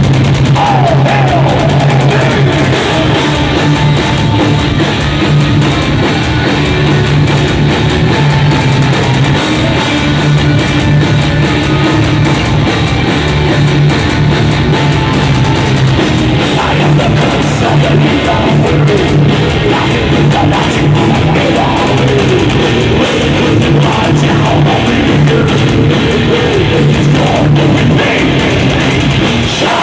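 Live heavy metal band playing loud, with distorted electric guitars, bass and drum kit, in an instrumental passage without singing.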